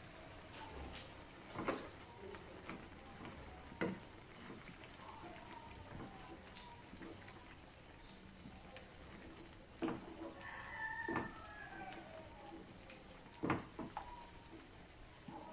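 Wooden spatula stirring chicken and pork adobo in a non-stick frying pan, with several sharp knocks of the spatula against the pan over a soft, steady sizzle of the simmering sauce.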